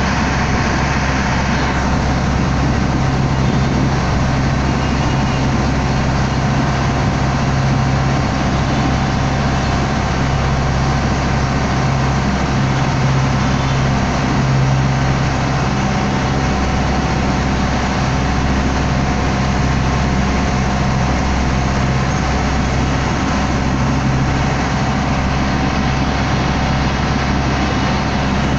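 Water taxi's engine running steadily under way: a constant low hum with an even hiss over it.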